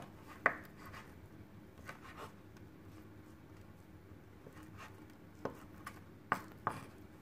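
Kitchen knife slicing fried tofu into thin strips on a bamboo cutting board: a few sharp knocks of the blade on the board at irregular intervals, with soft cutting between them.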